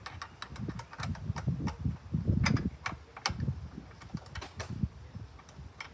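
Irregular clicks and light metallic knocks of hand tools and parts being handled on a walk-behind lawn mower's engine, over dull low thuds, loudest and busiest a couple of seconds in.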